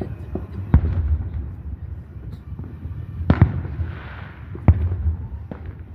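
Fireworks going off: several sharp bangs a second or more apart, the loudest about three seconds in, followed by a short crackle, over a steady low rumble.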